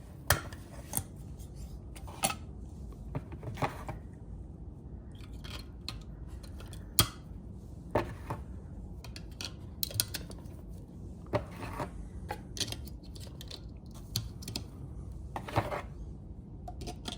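Scattered sharp plastic clicks and brief scrapes as the battery lid on the back of an electronic keypad door lock is handled and four AAA batteries are fitted into its holder.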